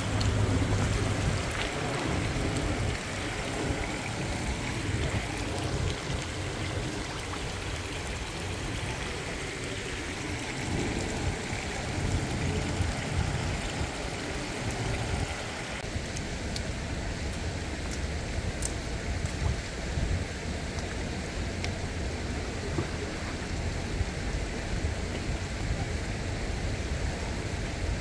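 Shallow river water running and splashing over stones at the bank, with fish splashing in the shallows near the start. A low rumble sits under the water noise throughout.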